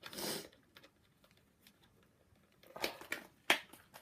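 Replica championship belt's leather strap handled, with a brief rustle at the start and a run of sharp clicks near the end as its metal snap fasteners are pressed together, which takes some force the first time.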